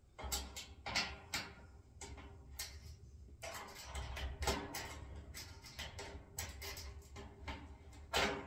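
Irregular small metal clicks and knocks as a nut and bolt are worked by hand on a steel wheelbarrow's tray bracket.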